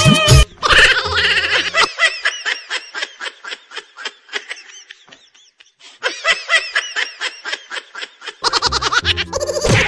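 High-pitched giggling laughter in quick repeated pulses, about four to five a second. It fades out around five seconds in, starts again about a second later and grows louder near the end.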